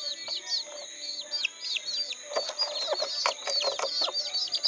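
Domestic chicks peeping constantly, a dense run of short, high peeps that slide downward in pitch. From about two seconds in, short clicks and scuffs join them.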